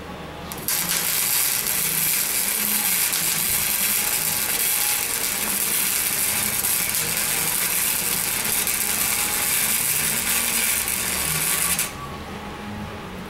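Welding arc crackling steadily as a bead is run on a steel socket clamped in a vise. It starts suddenly about a second in and cuts off about a second before the end.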